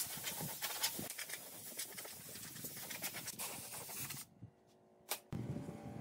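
Compressed-air blow gun hissing as it blows dust off a wooden tabletop. It stops about four seconds in, and a quieter low hum follows near the end.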